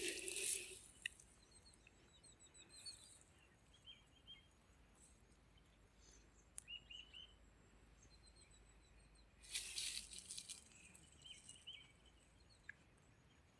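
Faint bird chirps: short, high calls scattered through near silence, with a brief rustle about ten seconds in.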